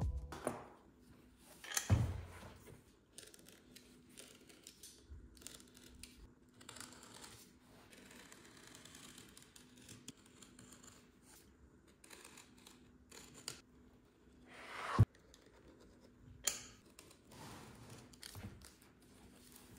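Small red-handled blade scratching and snipping through the stitching of a worn leather steering-wheel cover, with now and then a tearing sound as the old leather is pulled. Occasional knocks of the wheel against the wooden workbench, the sharpest about fifteen seconds in.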